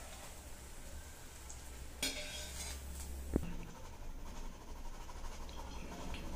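A wire mesh skimmer scraping in a steel kadhai and tapping against it as fried balls are lifted out of the oil: a short scrape about two seconds in and one sharp metal tap a little after three seconds, over faint sizzling of the frying oil.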